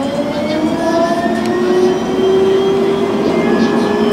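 Electric tram running along its track, heard from inside: the traction motors whine with several tones rising slowly in pitch as it gathers speed, over a steady rumble of wheels on rail.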